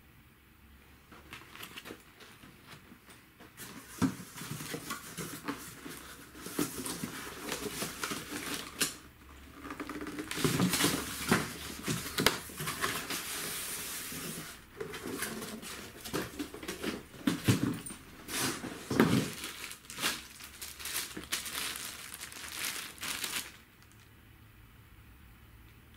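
Unpacking a desktop computer from its cardboard box: cardboard flaps scraping, plastic bag crinkling and polystyrene packing rubbing, with scattered knocks. The handling starts a few seconds in and stops shortly before the end.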